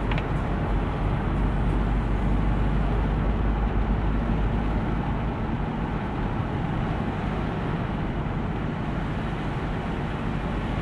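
Steady road noise inside a moving car on a wet road: engine and tyre rumble with a hiss from the wet tarmac, cutting off abruptly at the end.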